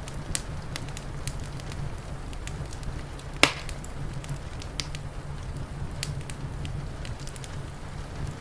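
Wood fire crackling, with irregular sharp pops and one loud snap about three and a half seconds in, over a steady low rumble.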